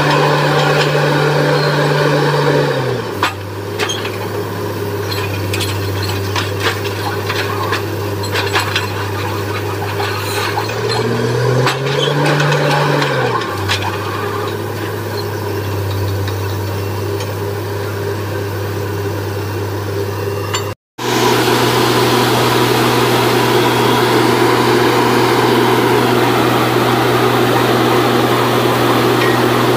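Borewell drilling rig's engine running steadily. Its speed drops about three seconds in, rises briefly around twelve seconds and drops again, with metal clinks and knocks between about three and ten seconds. It cuts out for an instant near twenty-one seconds, then runs on steadily.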